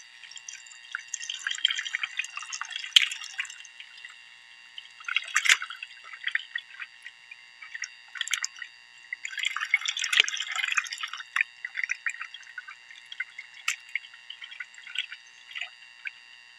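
Raw beef pieces being washed by hand in a plastic bowl of water, with irregular splashing and dripping and a few sharp knocks.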